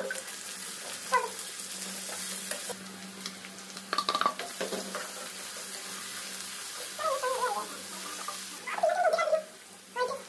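Sliced bell peppers and green chillies sizzling in a non-stick wok while a spatula stirs and scrapes them, with a few louder scrapes along the way.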